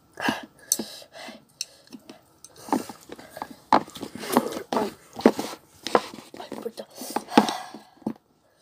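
Indistinct talking close to the microphone, broken into short bits.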